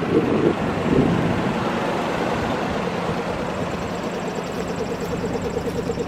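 A motor running steadily, with a low hum and a fast, regular pulse; no horn is sounding.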